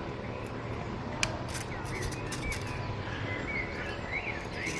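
Outdoor ambience with scattered faint bird chirps over a steady low background, and a single sharp click about a second in.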